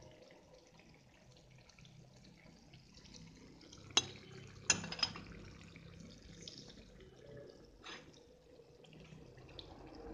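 Vegetable stew with broth simmering in a wok, faint bubbling and popping, with a few sharp clicks about four and five seconds in.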